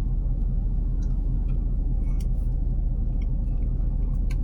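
Vehicle engine idling steadily, a low rumble heard from inside the cabin, with a few faint clicks over it.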